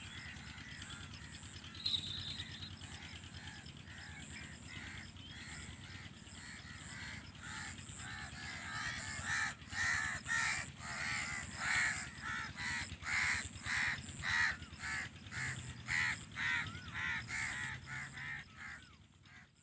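Crows cawing, a quick run of harsh calls at about two a second that starts about halfway through and grows louder. A faint, high, rhythmic chirping runs underneath throughout.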